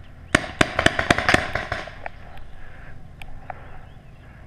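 Paintball marker firing a rapid string of about ten sharp pops in a second and a half, followed by a couple of fainter single pops.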